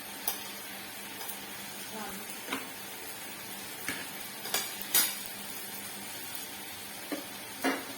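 Meat sizzling steadily on a tabletop samgyupsal grill, with several sharp clinks of utensils against the pan and dishes, the loudest about five seconds in.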